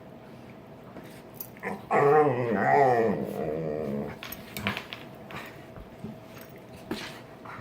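Dog growling during play-fighting (bitey face): a loud, wavering growl beginning about two seconds in and lasting about two seconds, followed by scattered short snaps and clicks.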